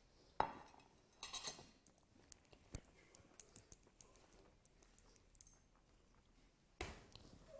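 Faint scattered clicks of cutlery against a plate as food is scooped and tasted. The sharpest click comes about half a second in, followed by a brief rustle and a few lighter ticks.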